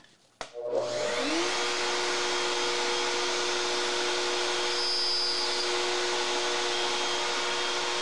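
An electric router switched on: its motor spins up over about a second, then runs at speed with a steady whine over a rushing noise.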